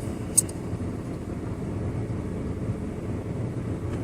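A single sharp metallic click about half a second in, from the Craftsman folding multi-tool being handled, over a steady low rumble.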